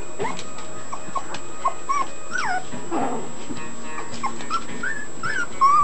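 Two-week-old puppies whimpering and squealing: about a dozen short high-pitched squeaks, some rising and some falling in pitch, with the loudest near the end.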